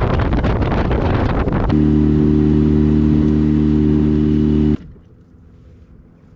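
Small boat's outboard motor running at speed, with wind and water rush over it, then a steady engine drone. About three-quarters of the way through it cuts off abruptly to a faint low hum with a few light clicks.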